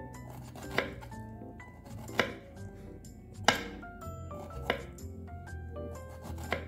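Kitchen knife cutting fresh ginger root on a wooden cutting board: five sharp knocks of the blade against the board, a little over a second apart.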